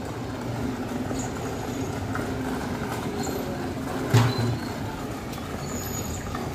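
Steady background noise with one short knock about four seconds in.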